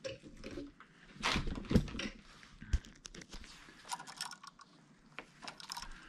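Irregular clicks, taps and rustling of hand work at an open wall-switch box as the light switch and its wires are pushed aside, with a busier cluster about a second in and one sharp click near the middle.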